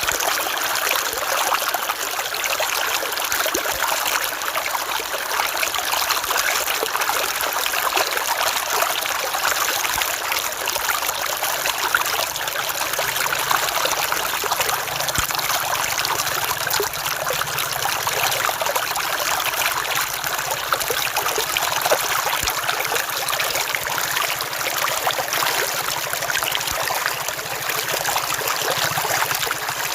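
River water flowing and trickling steadily over stones, an even rushing with many small splashes and gurgles.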